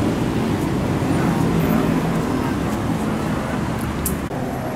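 Steady low engine hum and traffic noise, with faint voices in the background; the sound changes abruptly near the end.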